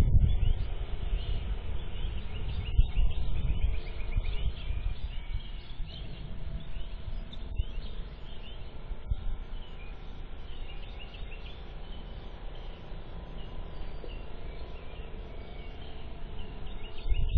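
Birds chirping, many short calls, over a low uneven rumble.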